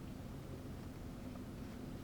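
Quiet steady background hum of the room, with no distinct sound events.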